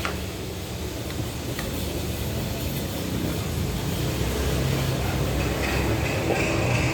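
A motor vehicle engine running steadily with a low rumble, a faint higher whine joining near the end, along with a couple of faint small clicks.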